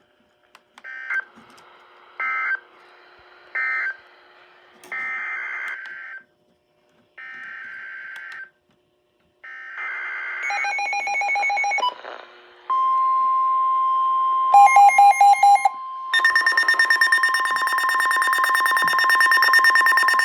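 Emergency Alert System tones between two weather warnings: three short bursts of digital data, then three longer data bursts (the coded header of the next alert). A steady high alert tone follows, joined by short rapid beeps and then a louder buzzing two-tone attention signal that continues to the end.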